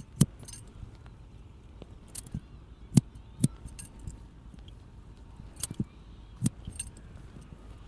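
Barber's metal scissors snipping close to the microphone: a series of sharp, crisp metallic clicks coming singly and in quick pairs at irregular intervals.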